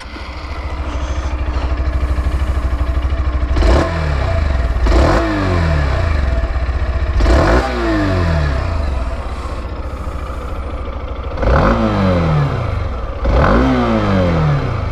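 Hero Xtreme 160R's single-cylinder 160 cc engine idling through its exhaust, with the throttle blipped about six times, each rev rising sharply and falling back to idle.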